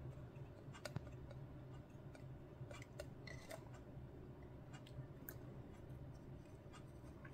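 Faint, scattered light clicks and taps from a plastic scale model being handled while a wash is worked over it, with a low steady hum underneath.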